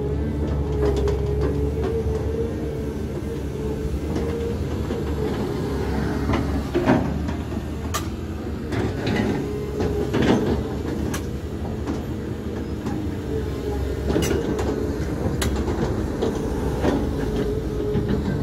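Caterpillar 320D hydraulic excavator working: its diesel engine runs steadily with a steady hum over a low rumble, and a few sharp clanks come from the bucket and boom linkage as the bucket is lifted and swung.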